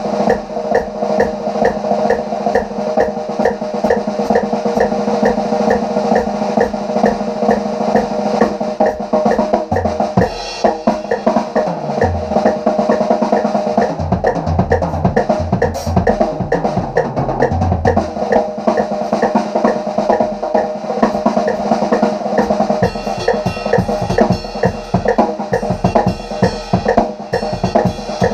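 Acoustic drum kit played fast and busy: a dense stream of snare, kick and cymbal strokes. In the middle of the passage, tom fills sound as low thuds stepping down in pitch.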